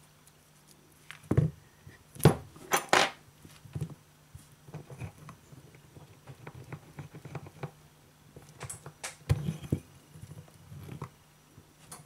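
Small metal tools and phone parts being handled on a bench mat: scattered clicks and knocks, with a few sharper taps about two to three seconds in and another about nine seconds in.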